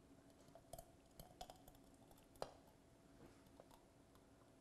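Very quiet pouring of hot jam from a stainless steel pot into a glass jar, with a few faint clicks as the metal rim touches the glass. The sharpest tap comes about two and a half seconds in.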